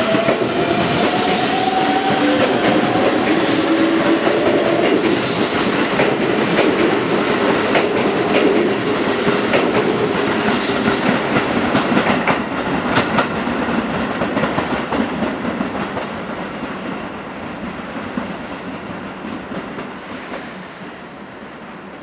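Keisei 3700-series electric train pulling out and accelerating, with a rising motor whine for the first few seconds. Then comes the clickety-clack of its wheels over rail joints as the cars pass, fading away as the train leaves over the second half.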